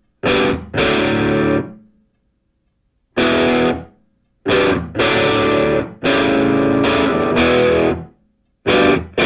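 Background music: distorted electric guitar chords played in separate stabs and held chords, broken by short gaps of complete silence.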